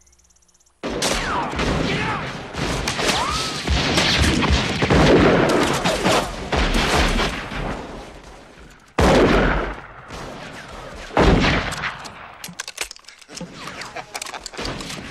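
A volley of gunfire, many guns firing at once in a dense, overlapping barrage. It starts suddenly about a second in, thins out after about eight seconds, then flares up again in two sharp bursts around nine and eleven seconds, with scattered shots after that.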